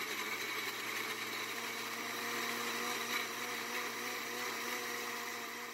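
Countertop blender running steadily as it purees soaked chiles de árbol, tomatoes, garlic and onion into a salsa, winding down at the very end.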